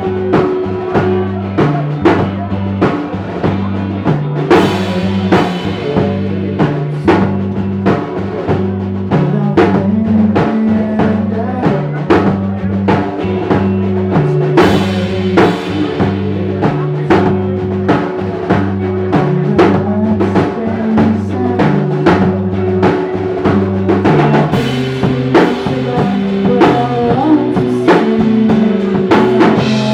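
Live rock band playing: a drum kit keeps a steady beat of kick, snare and rimshots under a bass guitar line and sustained electric guitars.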